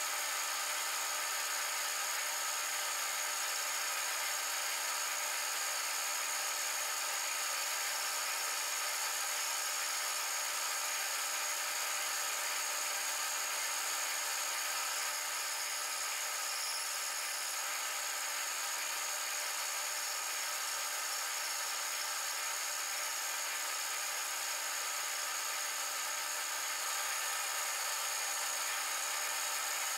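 Metal lathe running at a steady speed with a high whine, while a carbide-tipped boring bar cuts the inside of a spinning brass ring.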